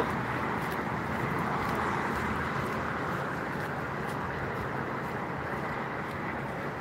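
Road traffic noise: a steady hiss of tyres on the road that slowly fades.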